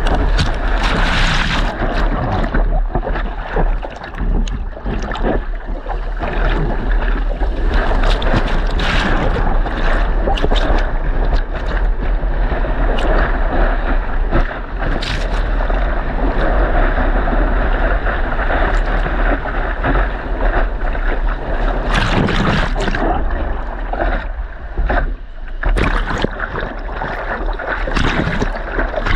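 Choppy, blown-out surf and wind heard through a GoPro Hero 9's microphone: a constant rush of whitewash with wind buffeting the mic and many short splashes.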